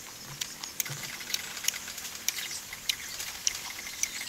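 Irregular crisp clicks and crunches, about one every half second, from eating and handling slices of pickled green mango.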